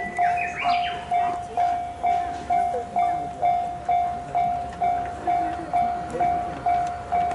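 Level-crossing warning bell ringing at a little over two strikes a second, one repeated tone, warning of the approaching train. A brief high rising sound comes about half a second in.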